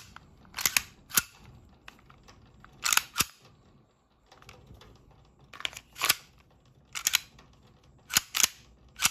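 KSC USP airsoft gas blowback pistol with a steel slide being worked by hand: the slide racked back and let go, making a series of sharp metallic clacks, several in quick pairs, as the faulty slide stop is tried.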